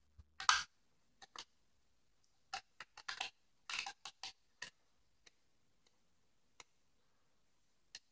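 Faint clicks and taps of Prismacolor Art Stix colour sticks knocking against their plastic tray as they are put down and picked out: one louder clack about half a second in, a quick scatter of ticks around three to four seconds in, then a couple of single ticks.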